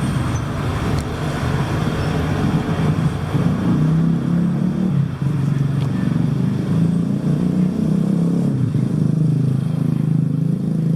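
Motor traffic passing close by: motorbike and car engines running, the engine note wavering as they go by.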